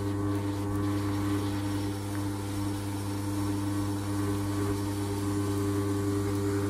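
Ultra mini wet grinder's electric motor running steadily with the atta-kneading attachment turning, kneading chapati dough: an even, unbroken hum.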